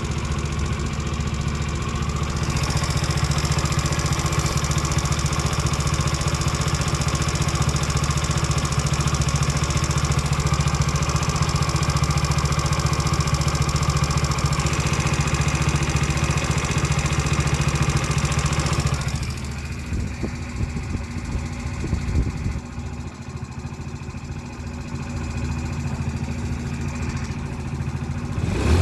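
139QMB 50cc four-stroke scooter engine running with a knock, which the owner cannot trace even though the valves are adjusted and the timing chain is new. The sound steadies, then drops quieter and lower about two-thirds of the way through, and picks up again right at the end.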